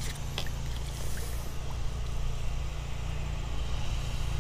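Baitcasting reel being cranked to retrieve a crankbait, with a few faint clicks, over a steady low rumble.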